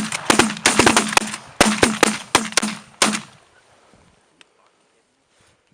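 A volley of shotgun blasts from several goose hunters firing together at incoming geese, about a dozen overlapping shots in quick, uneven succession. The shooting stops about three seconds in.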